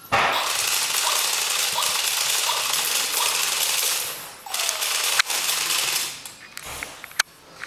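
Tekno robot dog toy giving a loud, continuous mechanical rattling buzz for about four seconds, then a few shorter bursts and sharp clicks.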